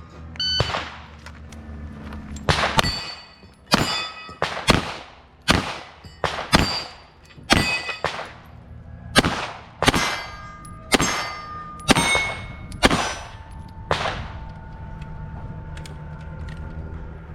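Pistol shots fired in quick strings at steel targets, about twenty in all, with the hit plates ringing after many of the shots. The shooting stops about fourteen seconds in.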